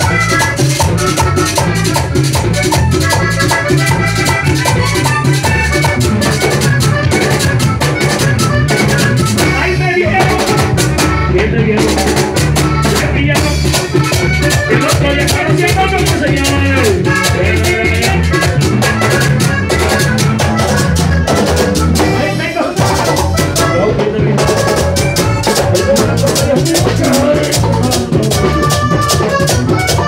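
Live vallenato band playing: button accordion melody over congas, bass and the fast, even scrape of a guacharaca, with a man singing over it from about ten seconds in.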